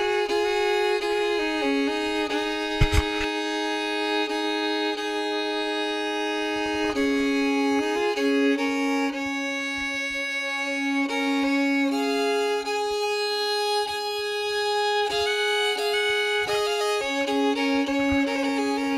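Background music: a violin playing slow, long held notes that change pitch every second or two, with a brief click about three seconds in.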